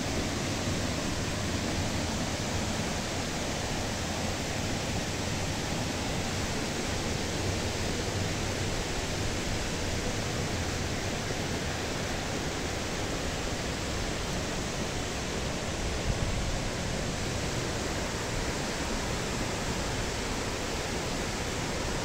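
A large waterfall in heavy winter flow and the fast stream below it: a loud, steady rush of falling and churning water that does not change.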